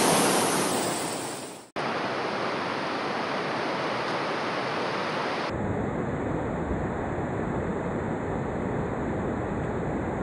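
Rushing river rapids: a steady hiss of white water. It fades out about two seconds in, then comes straight back at a steady level.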